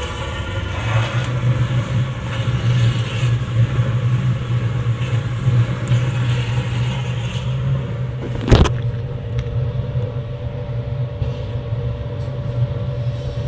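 Homemade waste-oil heater burning with a blue flame: the burner runs with a steady low rumble that builds about a second in and then holds. A single sharp click comes about eight and a half seconds in.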